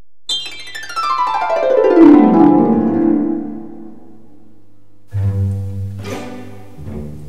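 Performance music: a rapid cascade of notes falling in pitch over about two seconds, then, after a short lull, low held notes with sharp accents begin about five seconds in.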